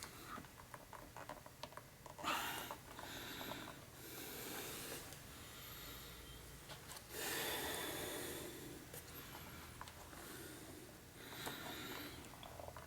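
A person's heavy breathing, several long exhales of a second or two each, with faint small clicks of hands working at a stuck plastic electrical connector.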